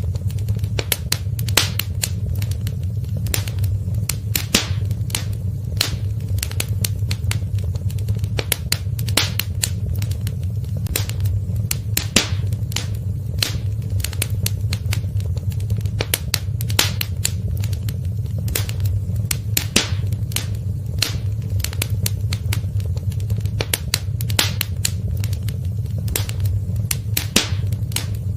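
Wood fire crackling in a fireplace: irregular sharp pops and snaps over a steady low rumble of the burning fire.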